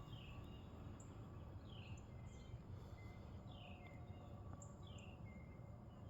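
Faint birdsong over a low background rumble: a short descending call repeats about every second and a half, with a few brief higher and lower chirps between.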